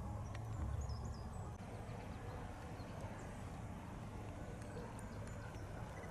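Outdoor ambience: a steady low rumble and hiss, with a few faint, high bird chirps near the start and again near the end.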